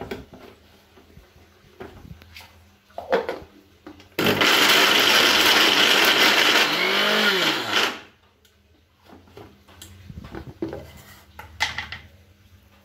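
Preethi Gold mixer-grinder running in a short burst of about four seconds, grinding sticky pitted dates into a paste. It starts suddenly about four seconds in and cuts off near eight seconds. Clunks of the steel jar and lid being handled come before and after.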